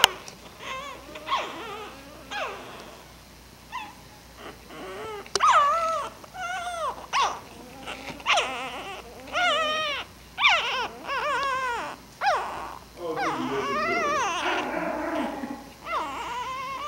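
A litter of newborn puppies whimpering and squealing: many short, wavering high cries, a few at first, then overlapping almost without pause from about five seconds in.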